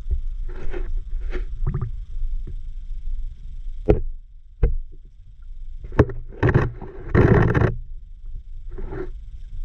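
Muffled underwater sound picked up through a submerged camera: a steady low rumble with a few sharp clicks, and a louder noisy swirl of water movement a little past the middle.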